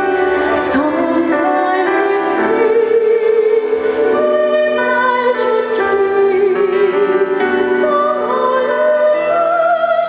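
A woman singing a slow melody through a handheld microphone in an operatic musical-theatre style, with long held notes that waver, over backing music.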